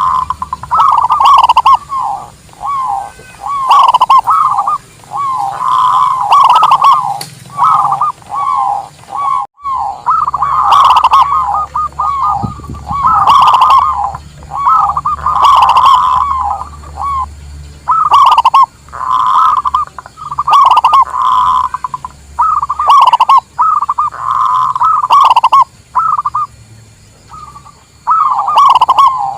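Zebra dove (local perkutut) song: loud, rapid cooing phrases repeated one after another, each a second or two long, with a brief break near the middle.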